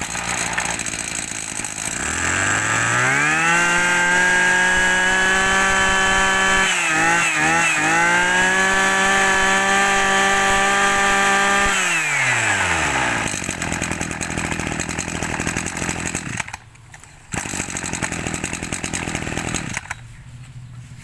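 Small Maruyama brush-cutter engine running: it idles, revs up to full throttle about two seconds in, holds a high steady whine with a brief stumble in the middle, then drops back to idle about twelve seconds in and keeps idling.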